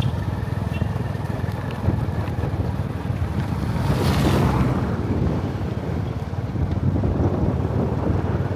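Wind buffeting the microphone over the low rumble of the moving vehicle carrying it, with a rushing swell about four seconds in.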